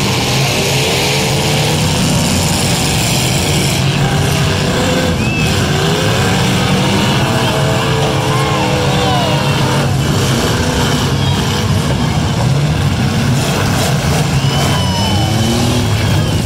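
Several demolition derby cars' engines revving hard together, their pitch rising and falling as drivers gun them, with a few dull impacts of cars ramming each other.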